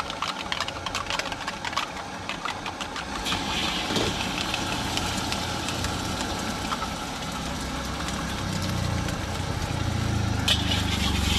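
Steel wok on a street cart's burner: a few light metal clinks, then sizzling that starts suddenly about three seconds in and swells again near the end, as ingredients go into the hot wok. Under it a steady low rumble that grows louder toward the end.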